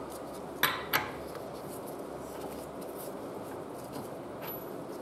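Two light clicks of steel hand tools, a socket and wrench handled on a workbench, close together about a second in, then faint steady room noise.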